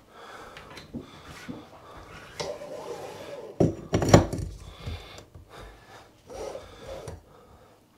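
Rubbing and bumping as a pull-down faucet's spray hose is fed down through the sink into the wooden cabinet, with a louder bump about four seconds in.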